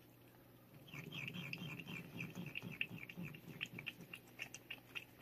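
Domestic cat licking Churu treat paste from a squeeze tube: a quick, irregular run of small licking smacks that starts about a second in and keeps going.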